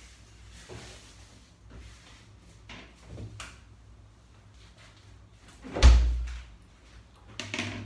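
Small knocks and rattles of things being set inside a refrigerator, then the fridge door shut with a loud, deep thump about six seconds in.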